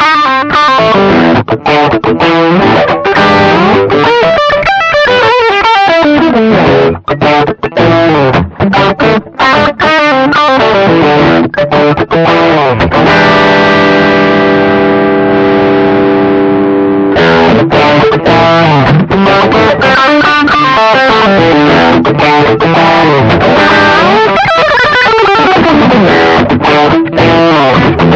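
1983 Aria Pro II electric guitar with modified pickups, played through a Caline Orange Burst overdrive pedal (a clone of the BB Preamp) for a distorted tone. It plays quick picked runs and chords, with one chord left to ring for about four seconds midway.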